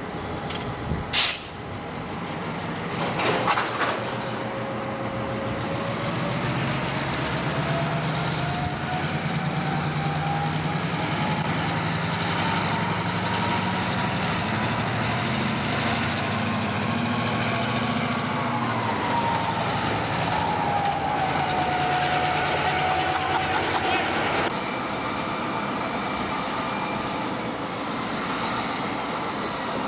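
Diesel locomotives working a rail yard. Sharp metallic clanks come about one and three seconds in. Then a locomotive's diesel engine runs with a whine that climbs slowly in pitch and drops back about two-thirds of the way through.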